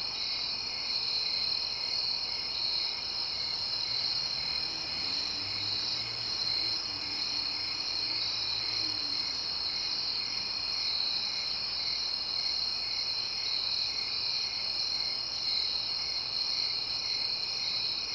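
Night insect chorus: crickets trilling steadily in high, overlapping tones, with a lower chirp repeating a couple of times a second. A faint low drone swells and fades in the middle.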